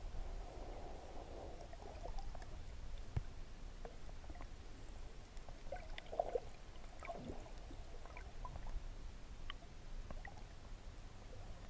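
Underwater ambience heard through a submerged camera housing: a muffled low rumble of moving water with soft gurgles and scattered faint clicks.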